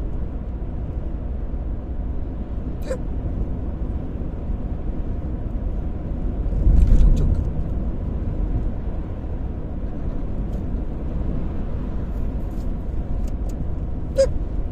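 Steady low road and engine rumble inside a minivan's cabin while driving, swelling briefly about seven seconds in, with a couple of faint clicks.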